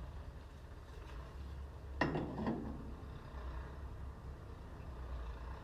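Metal tanker parts knocking together once about two seconds in, with a brief rattle after, over a steady low rumble.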